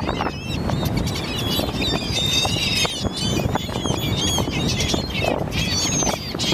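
A flock of seabirds calling over one another, many short, high, overlapping calls that are busiest a couple of seconds in, over a steady low rush of noise.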